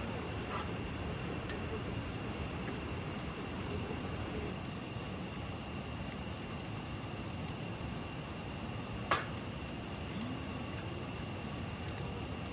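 Night insects chirping in a steady, regularly pulsing rhythm over a constant rushing background, with one sharp click about nine seconds in.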